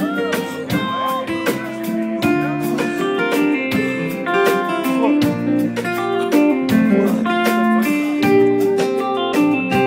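A live band playing an instrumental passage: a strummed acoustic guitar over bass guitar and drums, with a steady beat.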